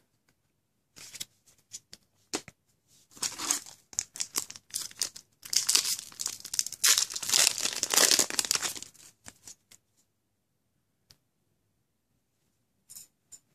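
Trading card booster pack wrapper being torn open and crinkled: short rustles at first, then a longer, louder stretch of tearing and crinkling around the middle that stops about nine seconds in.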